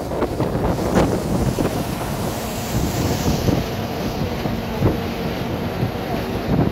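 Bus driving at speed over a bridge deck, heard at an open window: steady road and wind noise, with a knock about a second in and another near the end.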